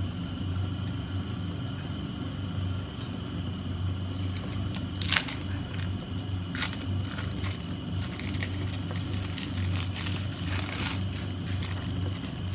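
Clear plastic food bag crinkling and crackling as cheese slices are taken out of it, in short irregular bursts that are sharpest about five seconds in and again about ten seconds in. A steady low hum runs underneath.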